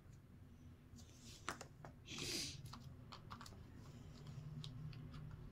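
Cardboard jigsaw puzzle pieces being handled and pressed into place on a puzzle board: scattered light clicks and taps, with a brief rustle about two seconds in.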